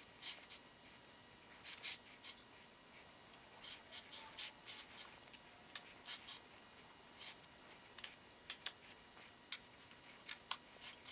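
Metal offset spatula spreading and smoothing cream cheese frosting on a layer cake: faint, irregular soft scrapes and light clicks.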